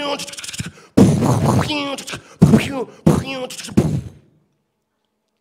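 A man making gunfire noises with his mouth into a microphone: about four loud, abrupt vocal bangs and bursts in quick succession, cutting off sharply about a second before the end.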